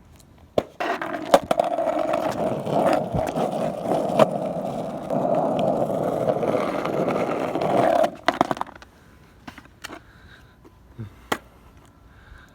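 Skateboard wheels rolling on pavement for about seven seconds, starting after a sharp clack of the board. The ride ends with a few more clacks about eight seconds in, then a few faint clicks.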